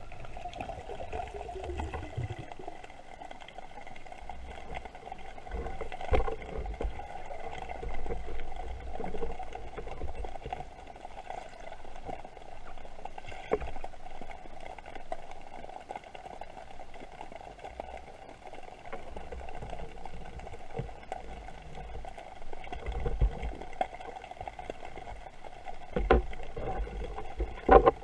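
Underwater sound picked up by a diver's camera: muffled water movement with low, irregular rumbling swells over a steady hum, and a few sharp clicks, the loudest near the end.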